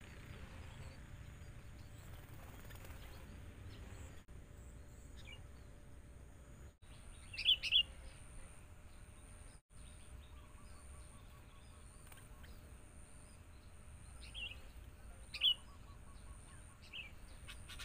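Sooty-headed bulbuls (kutilang) calling in short chirps. A loud cluster comes about seven and a half seconds in, and several more calls come near the end, over a steady low background rumble.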